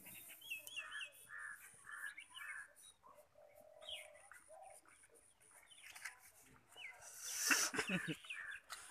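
Crows cawing and small birds chirping in repeated short calls. A brief, louder noisy sound comes near the end.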